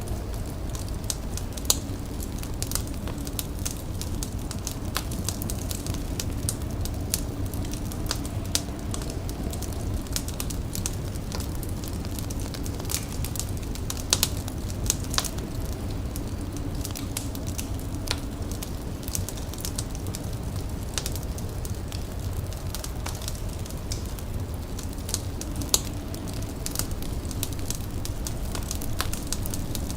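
Wood fire crackling steadily, with irregular sharp pops over a low rumble.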